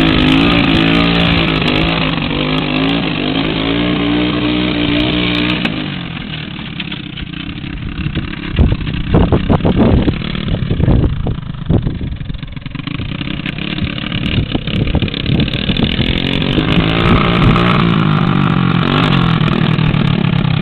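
Three-wheeler ATV engine running and revving as it churns through mud. It is strong at first, weaker through the middle as the machine moves off, and rises again near the end as it comes back. A few sharp thumps sound around the middle.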